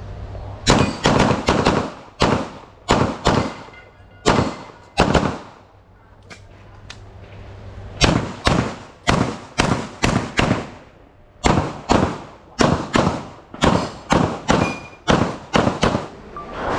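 Pistol gunfire during a practical-shooting stage: quick strings of shots at roughly three per second, about thirty in all, with a pause of a couple of seconds near the middle.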